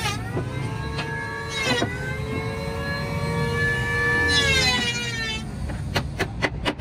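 A steady pitched mechanical whine, wavering slightly in pitch, runs for about five seconds. It then gives way to a quick run of hammer blows on the wooden cart rails, about four a second.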